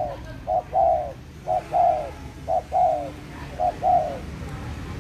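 A dove cooing in a quick, even series: about five two-part coos, each a short note followed by a longer arched one, roughly one a second.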